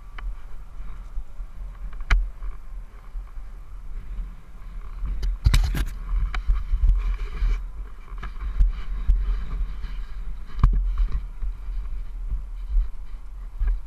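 Wind buffeting the microphone as a steady deep rumble, with a few sharp knocks and rustles; the loudest cluster of knocks comes about five and a half seconds in.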